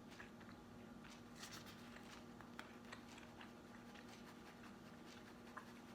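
Near silence: faint scattered clicks and rustles of someone eating, over a low steady hum.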